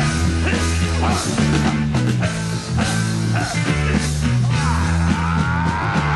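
Rock music with heavy drumming over a steady, repeating bass line. Near the end a wavering, sliding high line comes in.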